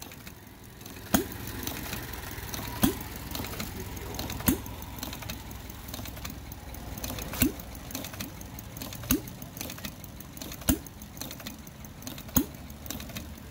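Hand-built ten-cycle engine made from Briggs & Stratton parts running slowly: it fires with a sharp pop about every second and a half, coasting on its heavy flywheels between firings, with a steady mechanical clatter underneath.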